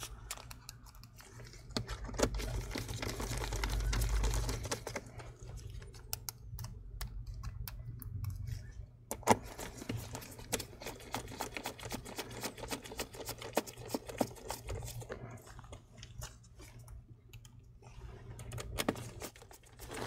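Irregular small clicks and taps of a precision screwdriver driving screws back into a laptop's metal hinge, with some handling rustle of the hinge and chassis a few seconds in.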